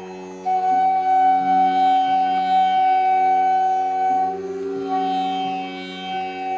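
Instrumental background music: a long held melody note over a steady drone, the melody shifting a little past the middle.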